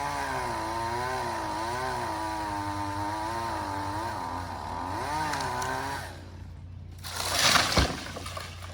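Two-stroke chainsaw cutting the tree, its engine pitch rising and falling under load, until it drops away about six seconds in. Near the end a short loud rushing crash ends in a sharp thud.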